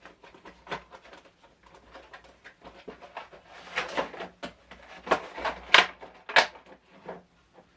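Packaging being handled: irregular crinkling, rustling and light knocks of cardboard and paper, with a few sharper crackles from about four seconds in.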